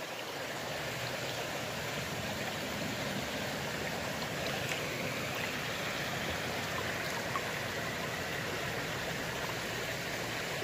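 Shallow creek water flowing over rocks: a steady rushing of water.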